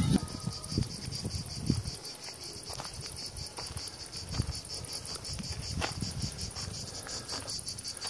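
Chorus of cicadas singing, a steady high-pitched buzz pulsing several times a second, with a few low thuds now and then.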